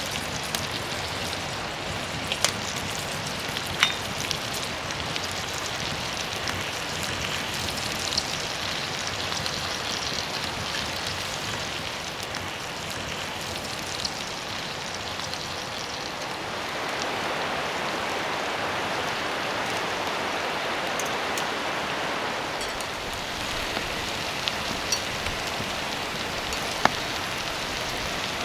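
Steady rain falling, with scattered sharp drip-like ticks. It grows a little louder for several seconds past the middle.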